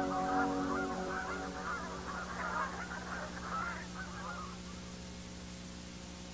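A large flock of geese honking, many calls overlapping, fading away and gone after about four and a half seconds. A faint steady low hum remains underneath.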